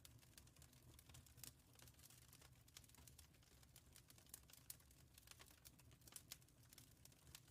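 Wood fire crackling faintly in a fireplace: irregular small cracks and pops, several a second, over a low steady rumble.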